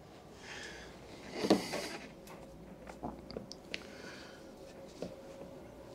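Light clicks and taps of a combination spanner working the band clamp on a stainless exhaust tailpipe while the pipe is twisted into position, with one louder handling noise about a second and a half in.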